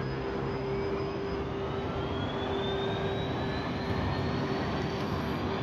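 Electric city bus pulling away, its drive motor whining in a pitch that rises steadily as it gathers speed, over a steady hum and tyre and road noise.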